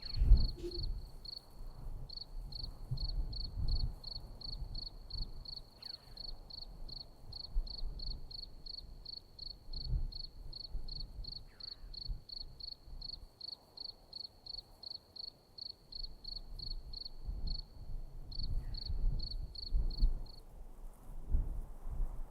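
A cricket chirping steadily, about three short high chirps a second, stopping shortly before the end. Irregular low rumbling thumps sound underneath.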